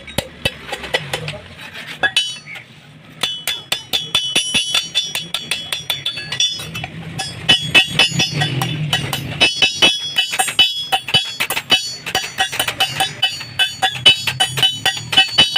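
Rapid hammer blows on metal, several strikes a second with a bright ringing after each, pausing briefly about two seconds in.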